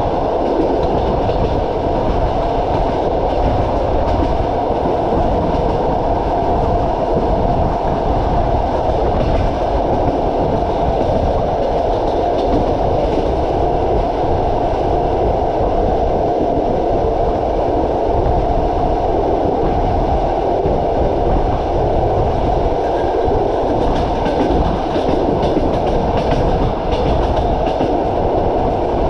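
Passenger train running along the line, heard from a coach window: a steady, even rumble of the wheels on the rails.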